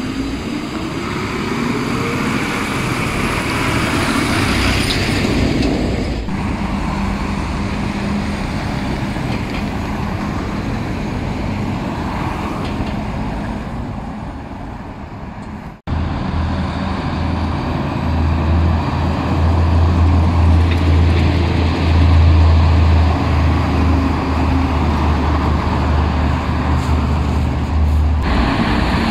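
Heavy diesel trucks and road traffic driving past. An engine note rises near the start, and after a break partway through a deep, steady diesel engine drone is the loudest sound.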